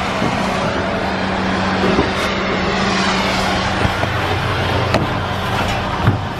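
A heavy vehicle's engine running steadily with a constant hum, with a few sharp knocks scattered through it.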